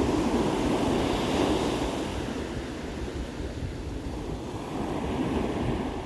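Ocean surf washing on a beach: one wave's wash fades over the first couple of seconds and another swells near the end, with wind rumble on the microphone underneath.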